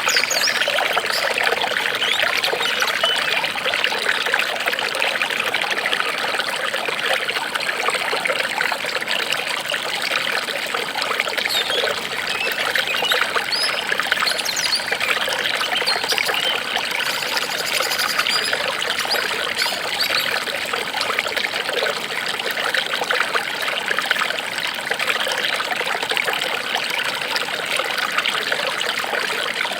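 Water trickling and splashing steadily, like a small stream or brook running over stones.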